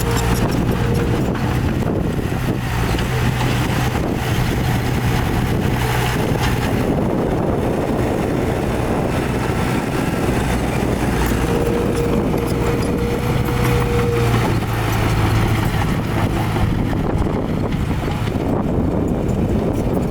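Heavy diesel earthmoving machinery running steadily under load, with a low engine hum and a faint whine that comes and goes.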